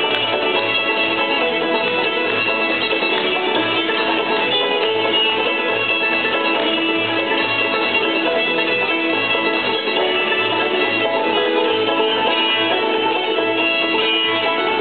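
Old-time string band playing a fiddle tune, with fiddle and banjo over guitar, and a steady run of low bass notes about twice a second underneath.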